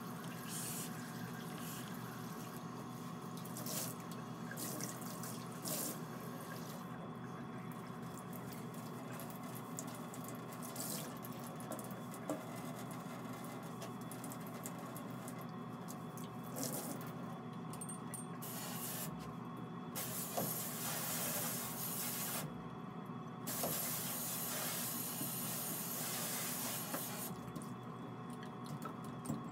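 Water running from a tap into a steel sink, with louder splashing stretches in the second half, over a steady low hum.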